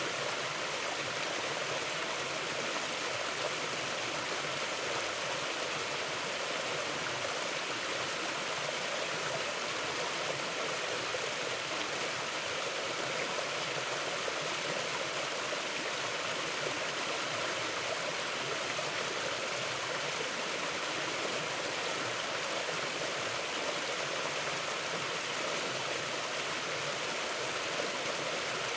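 Mountain river flowing: a steady, even rush of water that does not change.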